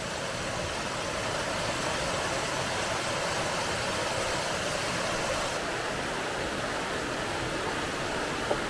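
Small waterfall on a rocky woodland stream, water cascading over the rocks with a steady rushing.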